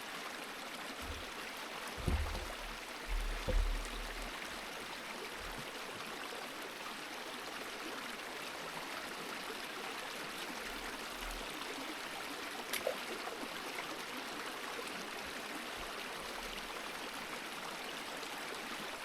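River flowing steadily with a constant rushing and trickling wash. A few low thumps break in about two and three to four seconds in.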